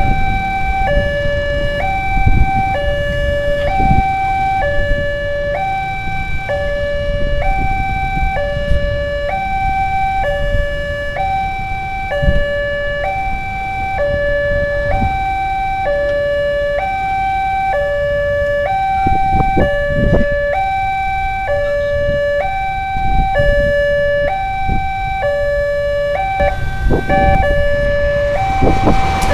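Railway level-crossing warning alarm sounding an electronic two-tone chime, a higher and a lower note alternating, each held just under a second, over the rumble of passing motorcycles and road traffic. Near the end a rush of noise swells as the train arrives at the crossing.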